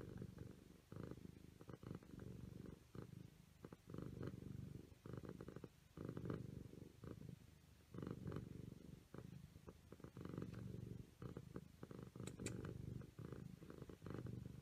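Siamese cat purring while dozing, a faint low buzz that swells and eases with each breath, about every two seconds.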